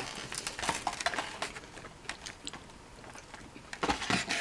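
Close-up chewing of a waffle, with scattered small clicks and crackles in the first second or so and a louder rustle near the end.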